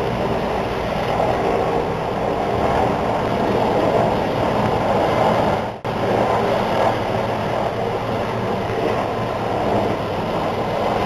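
Helicopter flying low overhead, its engine and rotor noise loud and steady, with a brief break about six seconds in.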